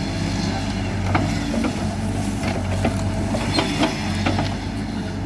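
Hidromek 102B backhoe loader's diesel engine running steadily under work, while it clears tree roots from a field. Several sharp knocks and cracks come through the middle part.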